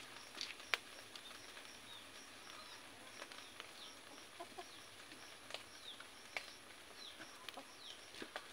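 Faint bird chirps: short falling peeps, scattered, over a soft high pip repeating about twice a second. A few sharp clicks stand out, the loudest a little under a second in.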